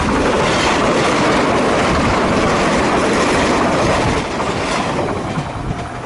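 JR 381-series Yakumo limited express electric train passing close by at speed, its wheels running loud on the rails; the noise drops away about four seconds in as the train goes past.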